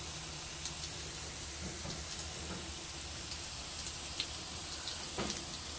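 Garden hose spray nozzle jetting water against a brick wall and pipe fitting: a steady hiss and splatter of spray.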